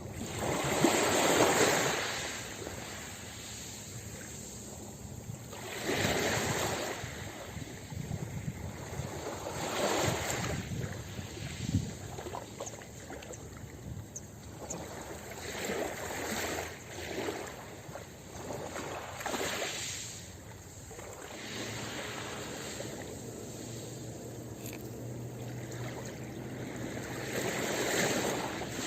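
Ocean surf washing onto a beach, each wave swelling and falling away every few seconds.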